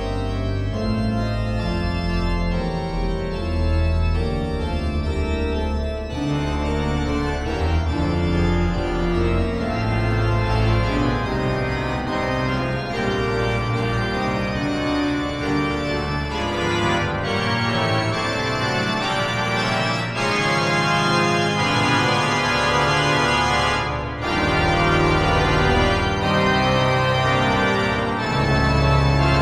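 Cathedral pipe organ playing full sustained chords over low pedal bass notes, the harmony changing every second or two.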